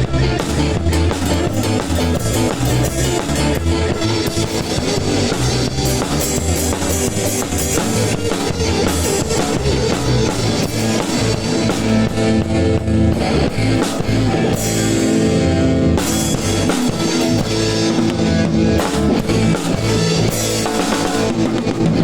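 A ska band playing: a PDP Encore acoustic drum kit with guitar, a continuous driving rhythm.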